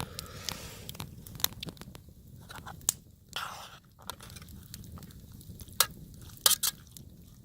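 Wood campfire crackling, with scattered sharp pops at irregular intervals over a low rumble of burning.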